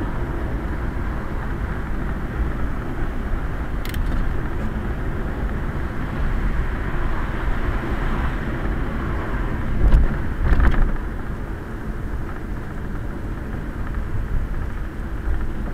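Quest velomobile rolling on a wet street, heard from inside its shell: a steady rolling rush of tyres and body. Two short thumps about two-thirds of the way through stand out above it.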